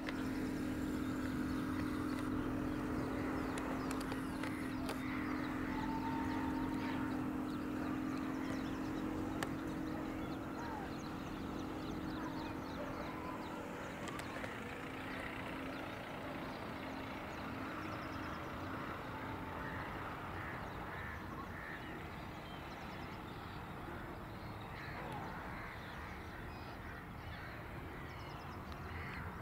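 Many birds chirping and calling at once, over a steady low hum that fades out about halfway through.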